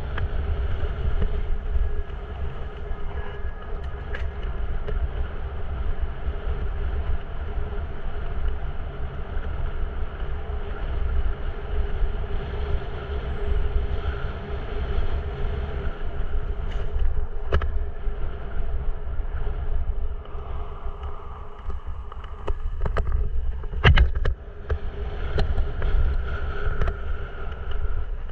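Mountain bike ridden over a dirt and gravel trail: a continuous low rumble of wind and tyre noise on the bike-mounted camera's microphone, with sharp knocks and rattles now and then as the bike hits bumps, the loudest near the end.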